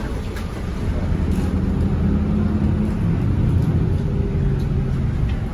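Diesel engine of an Isuzu NQR city bus running under load, heard from inside the cabin as a steady low drone that grows louder about a second in.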